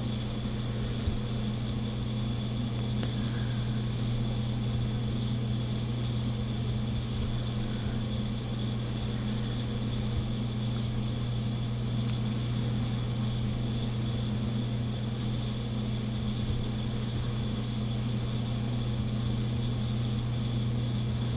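Steady low electrical hum with a faint high whine above it, unchanging throughout, and a few faint soft ticks.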